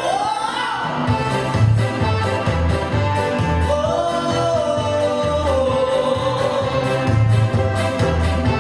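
Male singer singing into a handheld microphone over a pop backing track with a steady beat. He slides up into a note at the start and holds a long, wavering note from about four seconds in.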